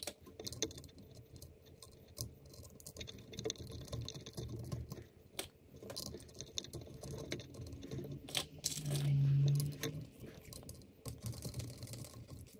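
Light metallic clicks and taps of hands fitting small Allen screws and a metal retaining plate onto an electric skateboard's hub-motor truck. A brief low hum sounds about nine seconds in.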